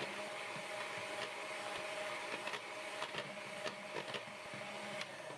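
A 300-watt two-speed electric hand mixer runs steadily, its twin beaters whipping egg whites into a white foam. The motor hum carries a few light clicks and fades out near the end.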